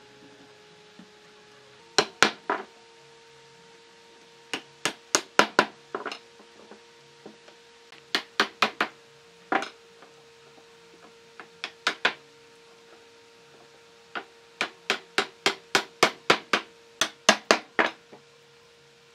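Wooden mallet knocking glued tenons home into mortises in a pine frame: sharp wooden knocks in quick bursts of about three to ten blows, with short pauses between bursts.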